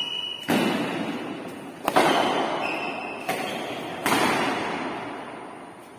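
Badminton rally: four sharp racket strikes on the shuttlecock in about four seconds, the last an overhead smash, each ringing on in the long echo of a large bare hall.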